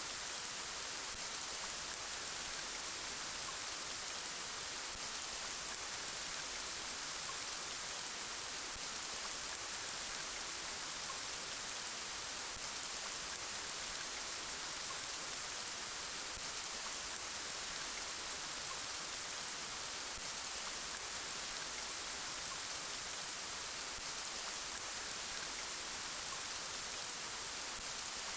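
Steady rain falling, an even hiss of many fine drops, brighter and high-pitched rather than deep.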